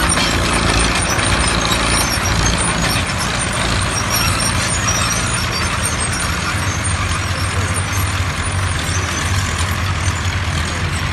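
OM crawler tractors' diesel engines running steadily under load while ploughing. The low engine note shifts about halfway through.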